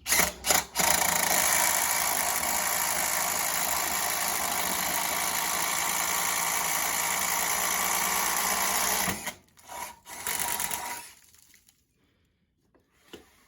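DeWalt drill boring a hole saw through a block of wood, running steadily for about eight seconds after a few short starts, then stopping once the saw has cut through, followed by two or three short bursts of the drill.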